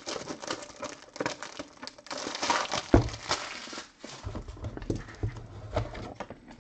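Irregular taps, clicks and rustles of a trading card and a rigid plastic top loader being handled on a tabletop, with a sharper knock about three seconds in.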